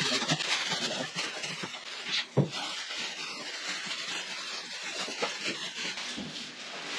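Plastic wrapping rustling and crinkling as it is handled and pulled off a flat-screen TV panel, with one sharp knock a little over two seconds in.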